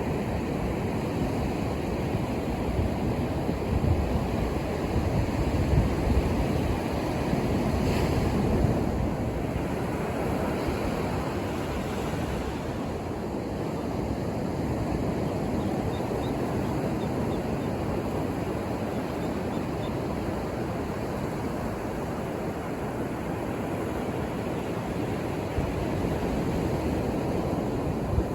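Ocean waves breaking and washing up a beach: a steady wash of surf that swells a little louder about a quarter of the way in.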